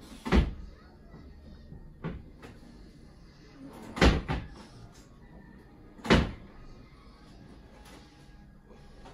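Four sharp knocks about two seconds apart, the one near two seconds in weaker than the others.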